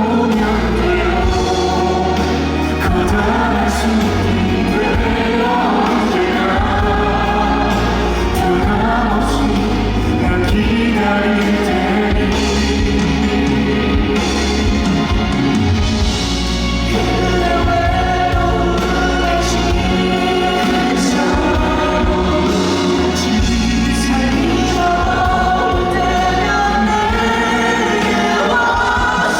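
Live performance of a male crossover vocal quartet singing a ballad in layered harmony over band accompaniment with a steady bass.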